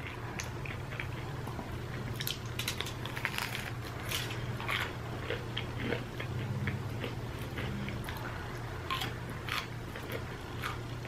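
A person biting and chewing a breaded, cheese-filled Cool Ranch Doritos Loaded snack, close to the microphone: irregular crisp crunches and crackles in clusters, over a steady low hum.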